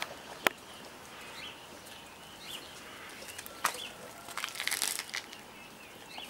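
Caucasian shepherd puppies eating together from a metal bowl: scattered clicks, with one sharp click about half a second in, and a burst of crunching, rustling noise about two thirds of the way through.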